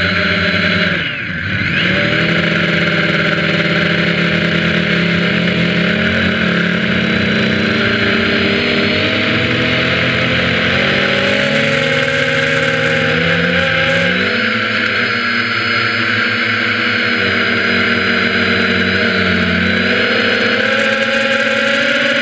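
Multirotor drone's electric motors and propellers whining loudly, heard from a camera mounted on the drone itself. The pitch drops sharply about a second in as the throttle is cut, climbs back, then shifts up and down in small steps as the throttle changes.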